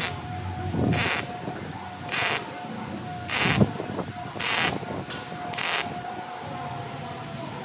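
MIG welder arc crackling in short bursts while stitch-welding a 4-inch exhaust stack pipe: about six bursts roughly a second apart, stopping about six seconds in.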